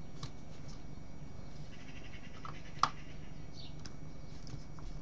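Small screwdriver turning a tiny screw into a plastic pulley on a model engine, with faint ticks and one sharp click a little before the three-second mark.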